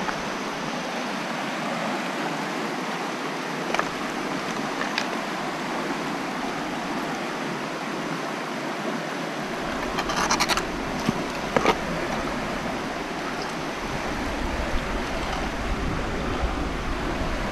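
Shallow river flowing over stones, a steady rush of water, with a few short knocks and scrapes, most of them about ten to twelve seconds in, as the neodymium magnet and a waterlogged piece of wood are handled.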